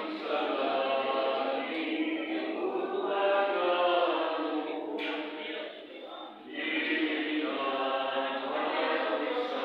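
A group of voices singing together in a slow, chant-like line, with a short break in the singing about six seconds in and a brief click just before it.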